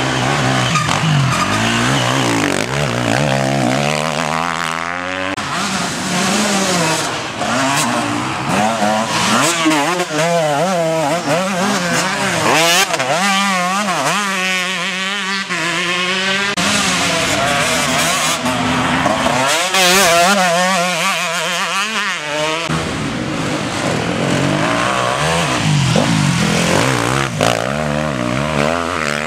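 Enduro motorcycle engines revving hard as riders accelerate along the course and pass one after another, the pitch rising and falling with the throttle and gear changes.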